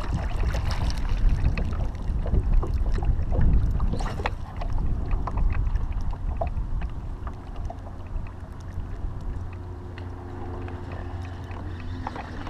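Kayak paddle handling: water splashing and the paddle knocking against the plastic kayak, over a steady wind rumble on the microphone. It grows quieter about halfway through.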